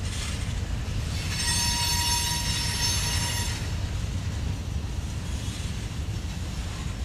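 Covered hopper cars of a freight train rolling past with a steady low rumble of wheels on rail. About a second in, a car's wheels squeal in a high, piercing tone for some two and a half seconds, then stop.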